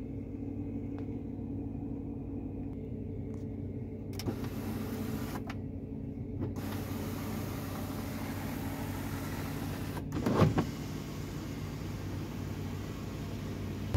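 Power sunroof of a Jeep Grand Cherokee SRT8 motoring open, over the steady idle of its V8. A brief, louder bump about ten and a half seconds in.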